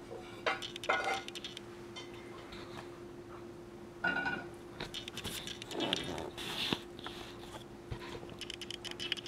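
Quiet kitchen room tone with a steady hum, broken by scattered small clicks and rustling handling noises.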